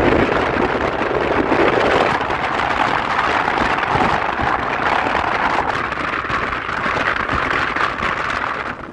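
Wind rushing over a phone's microphone on a moving motor scooter: a steady, loud noise that eases off near the end.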